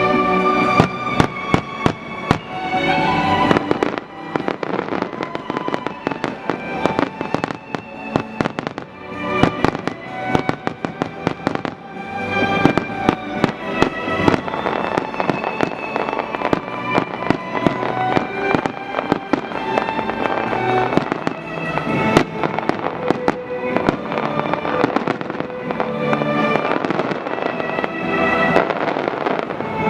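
A fireworks display, many rapid bangs and crackles from bursting shells, with music playing underneath throughout.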